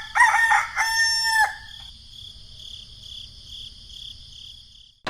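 A rooster crowing once, a pitched call that rises and is then held for about a second and a half. A steady high-pitched background tone continues after it.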